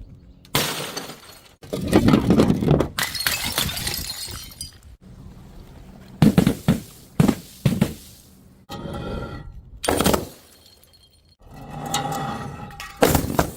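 Glass bottles smashing one after another, about ten separate crashes, each a sudden impact followed by shards clinking. Some breaks leave a clear ringing tone from the glass.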